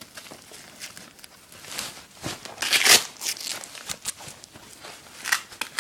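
Nylon plate carrier being handled: fabric rustling and scraping in irregular bursts, with a louder scratchy rasp about three seconds in and a few light clicks.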